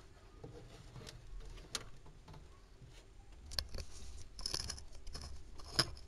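Scattered light clicks and rustling from hands handling wiring against the car's bare sheet-metal body, with a few louder scratchy rustles in the second half.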